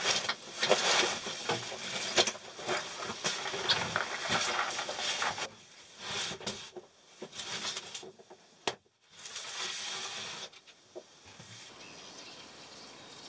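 Rustling, shuffling and knocks as someone climbs in and moves about handling things inside a small camp trailer, with one sharp click about two-thirds of the way through. Near the end only a faint steady outdoor hiss remains.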